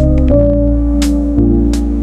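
Background music with held synth-like chords, deep bass and a steady beat of sharp percussive hits.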